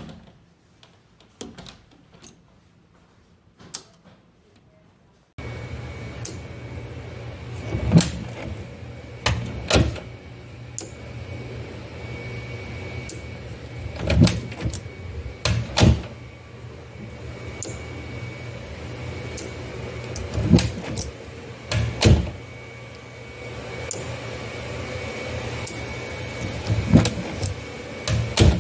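Door handle and lock mechanism clicking and clunking about ten times at irregular intervals, over a steady room hum that starts abruptly about five seconds in.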